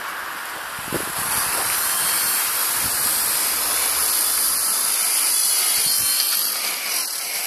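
High-pitched whine of a Blade mCPX RC micro helicopter's electric motors and rotor, rising sharply about a second in as it spins up and lifts off the streetlight, then holding steady in flight.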